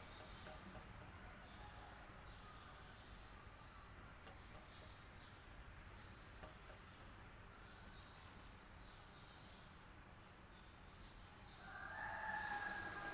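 Steady high-pitched insect chirring, faint and unbroken, over a low rumble. A short louder call with two tones, falling slightly in pitch, comes in about twelve seconds in.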